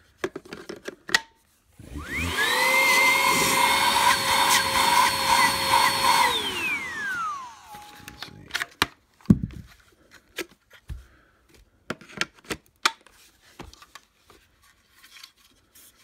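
Hart 20V brushless cordless stick vacuum switched on about two seconds in: the motor spins up to a high steady whine, runs for about four seconds, then is switched off and winds down. Scattered clicks and knocks of plastic parts being handled follow.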